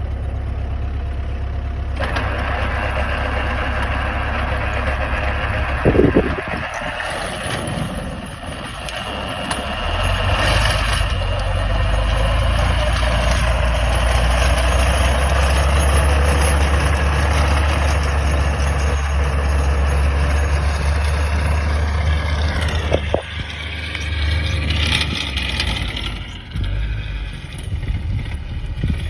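MTZ tractor's diesel engine running under load, driving a 180 cm PTO rotary tiller as it cuts through soil. There is a sharp knock about six seconds in. The engine note grows louder and deeper about ten seconds in, and dips in pitch and recovers near the end.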